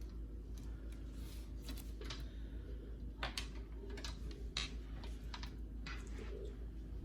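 Scattered light clicks and taps, a few a second, as computer case parts are handled, over a steady low hum.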